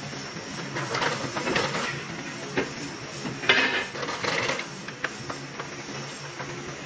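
Irregular metallic clinks, knocks and scrapes over a steady hum, the sharpest knock about three and a half seconds in.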